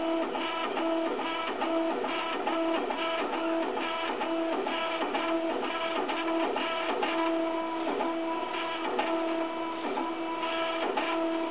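The two stepper motors of an H-bot 3D printer frame driving the carriage in a dry test run: a pitched motor whine that comes and goes in short moves, each at the same pitch, with little clicks as moves start and stop.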